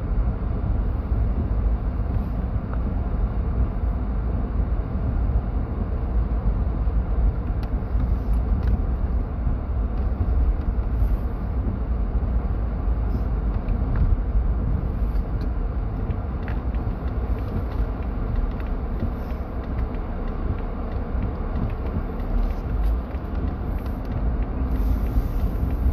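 Steady low road-and-engine rumble inside a moving car's cabin, with a few faint ticks and creaks.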